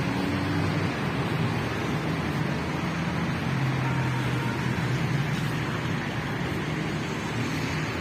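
City street traffic: a steady wash of car engine and tyre noise from the road, with a deeper engine hum swelling for a couple of seconds partway through.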